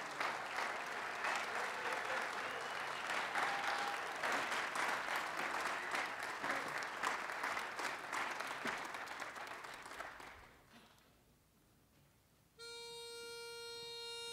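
Audience applause that fades out about ten seconds in. After a short silence, a pitch pipe sounds one steady note for about two seconds near the end, giving the barbershop quartet its starting pitch.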